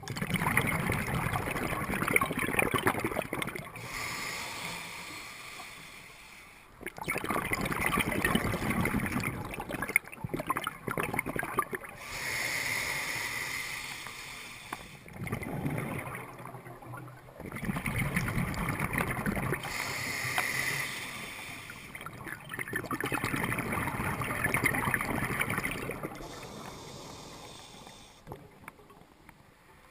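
Water sloshing and splashing in repeated surges that swell and fade every few seconds.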